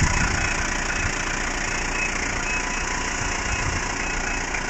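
Mazda Bongo campervan's engine idling steadily while its electric pop-top roof motors up.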